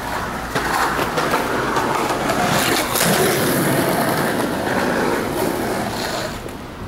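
Skateboard wheels rolling on concrete, a steady rumbling hiss that swells and then fades away near the end.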